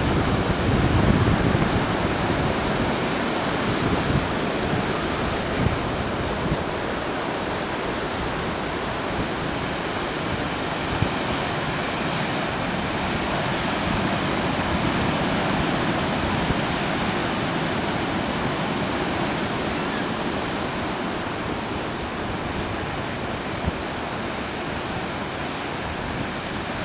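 Steady wash of Pacific Ocean surf breaking on shoreline rocks.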